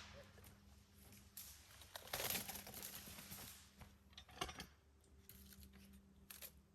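Faint rustling and crackling of brush and twigs, loudest about two seconds in, with a few sharp snaps later.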